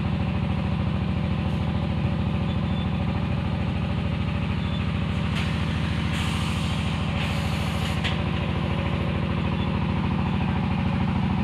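Engine of an automatic clay brick-making machine running steadily at constant speed, a loud even low drone with a fine regular pulse. A short hiss rises over it about six seconds in and fades about two seconds later.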